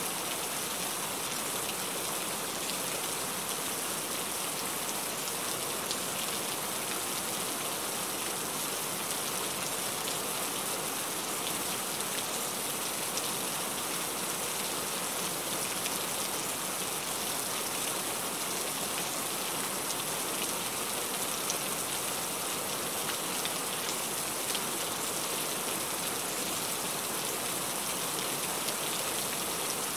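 Heavy rain falling steadily: an even, unbroken hiss with faint scattered ticks of individual drops.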